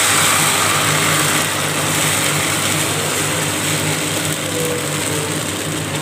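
Ragi milk pouring into a pan of hot ghee, sizzling and splashing in a steady hiss that eases slightly toward the end.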